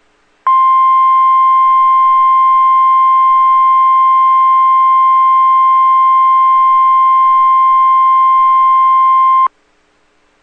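NOAA Weather Radio 1050 Hz warning alarm tone: one steady, high beep that starts about half a second in and cuts off sharply after about nine seconds. It is the tone that automatically sets off weather alert receivers, sent here as the weekly test.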